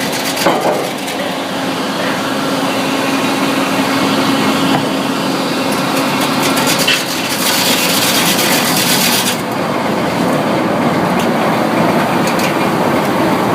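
Sawmill machinery running steadily and loudly, with a steady hum and a high hiss that cuts off about nine seconds in.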